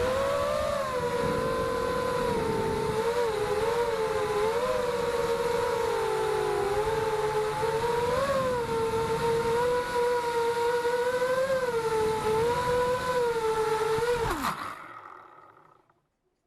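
TCR-220 FPV racing quadcopter's KingKong 2205 2300kv motors and 5x4x3 tri-blade props whining in flight, the pitch wavering up and down with the throttle. Near the end the pitch drops sharply and the motors spin down and fall silent.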